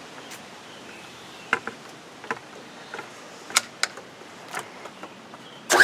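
Several light clicks and clacks of a quick-connect nozzle tip being handled and fitted to the pressure washer wand, then the pressure washer starts up and sprays just before the end, with a loud steady rush and hum.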